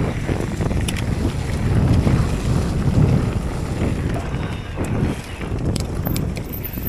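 Wind rumbling and buffeting on a DJI Osmo Action 3 camera's microphone during a fast e-mountain-bike descent, with a few sharp clicks and rattles from the bike over the rough trail.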